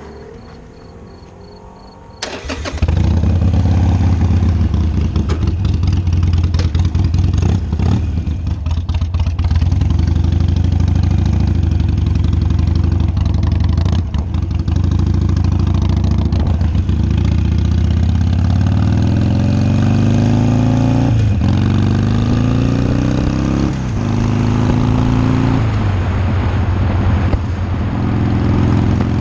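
Motorcycle engine starting about two seconds in, then running loud and steady as the bike rides off. Near the end its pitch climbs several times, each climb followed by a short dip, as it accelerates up through the gears.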